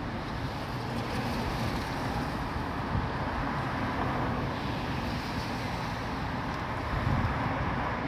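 Steady rushing noise of gasoline being pumped through a fuel nozzle into a car's tank.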